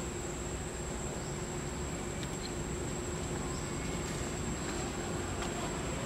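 Forest ambience: a steady, high-pitched insect drone over a low, even background rumble.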